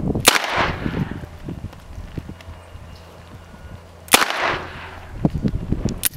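.357 Magnum revolver fired twice, the shots nearly four seconds apart. Each shot trails off in a short echo.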